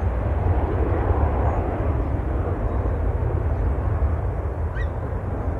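Jet noise from a JAS 39C Gripen fighter's Volvo RM12 afterburning turbofan in flight: a deep, broad rumble that slowly fades.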